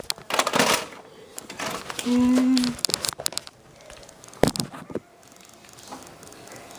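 Handling noises: rustling and scattered sharp clicks. A short steady hum comes about two seconds in, and a louder single click about four and a half seconds in.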